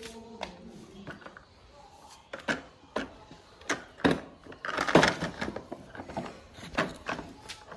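A series of irregular knocks and clatters, about a dozen, with the loudest cluster about five seconds in.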